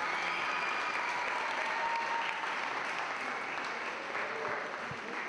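Audience applauding steadily, the clapping slowly fading toward the end.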